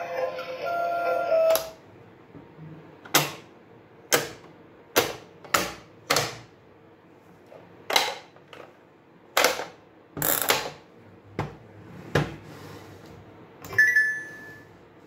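A short electronic tune ends about a second and a half in. Then a plastic pop-up toy clicks and snaps about a dozen times, irregularly, as its push buttons are worked and its spring-loaded animal lids move. A brief high beep comes near the end.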